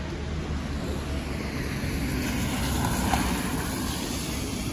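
Traffic passing on a wet street: tyre hiss and engine rumble swell to a peak about three seconds in, then ease off.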